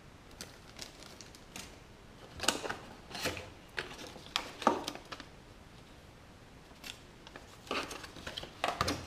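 Packaging being handled: a plastic bag crinkling and a cardboard box insert rustling, with light clicks, in a few short bursts and louder near the end.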